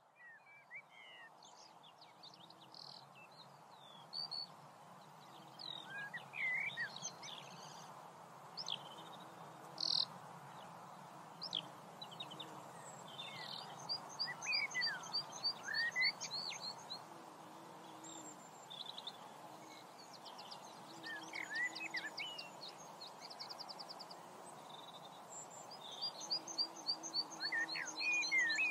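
Several songbirds singing: varied chirps, whistled pitch glides and fast trills, over a steady background hiss. The sound fades in at the start.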